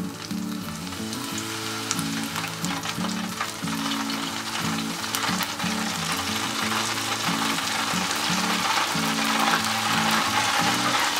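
Battered webfoot octopus frying in hot oil in an electric deep fryer on its first fry at 170 °C. It is a steady, crackling sizzle that grows louder as more battered pieces go in, over background music.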